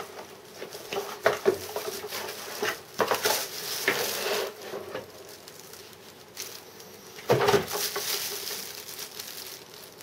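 Box packaging being handled as a keyboard is lifted out: irregular rustling and knocks of cardboard and plastic, with the loudest knock and rustle about three quarters of the way through.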